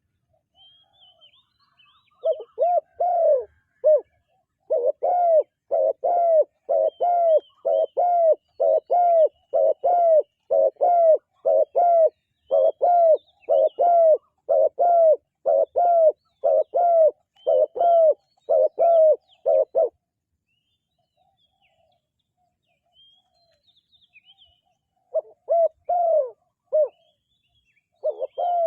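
Spotted dove cooing: a long, even run of short arched coos, nearly two a second, lasting about eighteen seconds. After a pause a few more coos come near the end. Faint higher chirps of small birds sound in the background.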